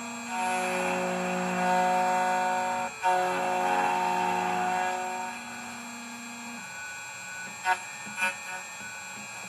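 2M2 Tank II Pro CNC key cutting machine's motors whining steadily in two runs of a couple of seconds each, split by a click, as the machine starts its cutting cycle on a Hyundai TOY40 key blank; two sharp clicks follow near the end.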